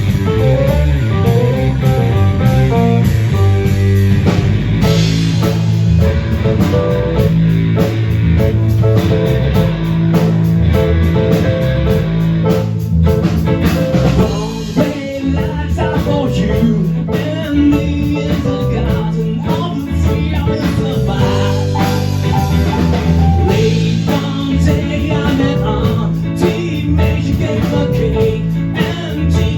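Live band playing an original song with guitar and drum kit, with some singing.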